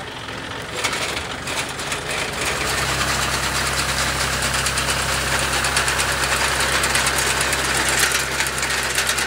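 John Deere 5050E tractor's three-cylinder diesel engine running steadily under load, with the front-mounted Vasundhra Super reaper's cutter bar chattering as it cuts standing paddy. The engine note firms up about three seconds in.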